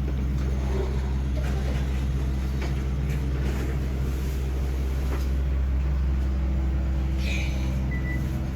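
Hotel passenger elevator descending, its car and drive giving a steady low hum. Near the end a short high beep sounds, as the car nears its floor.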